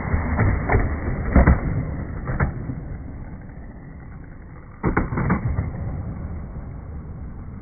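Skateboard wheels rolling on a concrete bowl with several clicks as the board rides up the transition, a quieter stretch while the board is in the air, then a loud clack as it lands on the concrete deck about five seconds in, and the wheels roll on.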